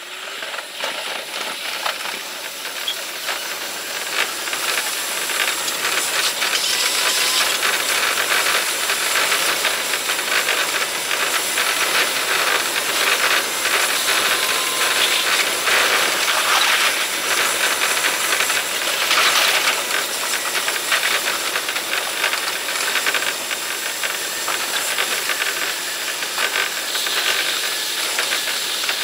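Electric commuter train's running noise from the driver's cab, played back at five times speed, so it comes out as a dense hiss full of fast rattling clicks. It grows louder over the first few seconds as the train accelerates away from a station, then stays steady.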